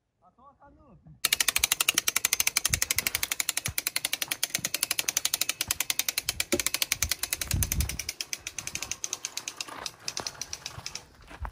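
A hand winch's ratchet clicking rapidly, about a dozen clicks a second, as it is cranked to haul a motorbike's cable in under load. The clicking starts suddenly about a second in and thins out near the end, with a few dull knocks.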